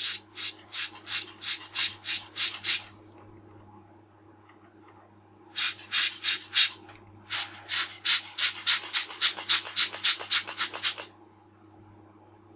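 Rubber bulb air blower squeezed in quick puffs of air, about four a second, in three runs with short pauses between, blowing dust off a lens's aperture blades.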